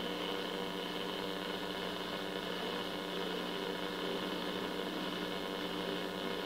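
Steady electrical mains hum with a constant hiss behind it, from the powered-up tube radio and bench test equipment.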